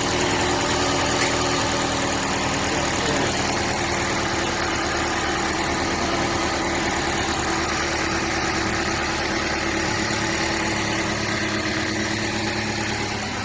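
Toyota Corolla Fielder four-cylinder engine idling steadily, after new spark plugs and new number 2 and number 4 ignition coils were fitted to cure cylinder misfires and a rough idle.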